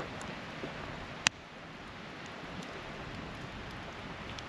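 Wood campfire burning: a steady hiss with a few sharp crackles and pops, the loudest about a second and a quarter in.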